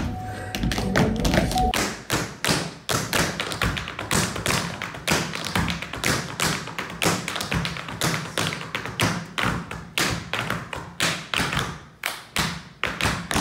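Tap shoes striking a wooden stage, two dancers tapping an unaccompanied rhythm of sharp, uneven clicks several times a second. Backing music runs under the taps for about the first two seconds, then stops.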